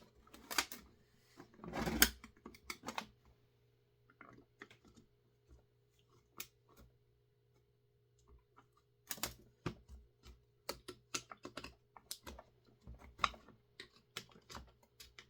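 Irregular clicks and taps of hand tools against the metal and plastic parts of a partly dismantled Husqvarna 350 chainsaw as a stuck piece, held fast by glue-like residue, is worked at. A cluster of clicks comes in the first few seconds, a few scattered ones follow, then a quick run of clicks fills the last six seconds.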